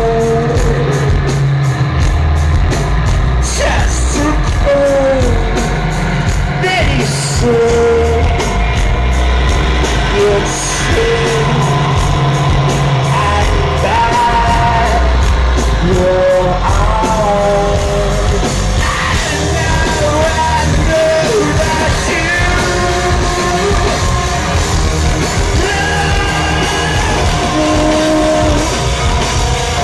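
Alternative metal band playing live: distorted electric guitar, bass and drums, with a male singer's vocal, sometimes shouted, over them throughout.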